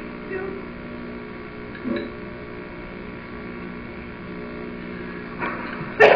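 Steady electrical hum on an old home-video soundtrack, with two faint brief sounds about half a second and two seconds in. A sharp click and loud voices come in right at the end.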